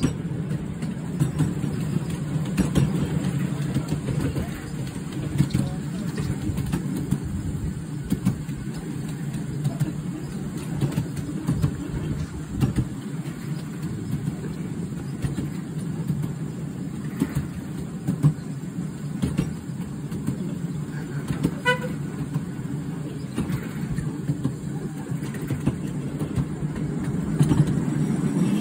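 Miniature railway train running, heard from on board: a steady low rumble of wheels on the track with frequent small clicks, and one short toot about three-quarters of the way through.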